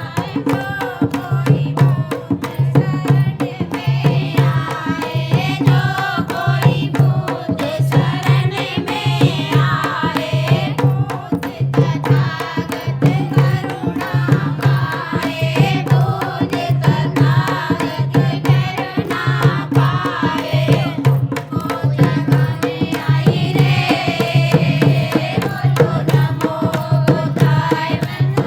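A Bhim geet, a Hindi devotional folk song, sung over a steady hand-drum beat that falls about once every second.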